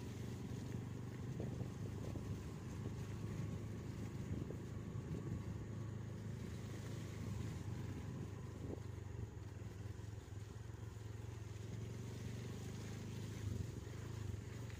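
Daihatsu Gran Max van's engine running steadily under way, a continuous low drone.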